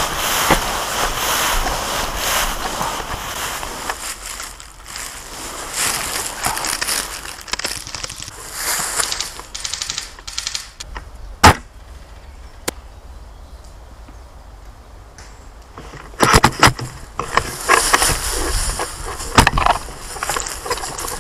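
Movement through swampy undergrowth: rustling vegetation and water splashing underfoot, quieter in the middle. About eleven and a half seconds in comes a single sharp crack, the loudest sound, and a cluster of sharp clicks and snaps follows near the end.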